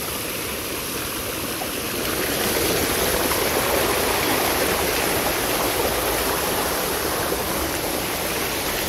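Spring-fed stream flowing, a steady rush of water that grows a little louder about two seconds in.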